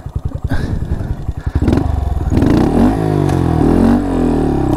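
Honda Monkey 125's air-cooled single-cylinder four-stroke engine ticking over with an even pulse, then revved up about two seconds in as the bike pulls away, its note rising and wavering with the throttle.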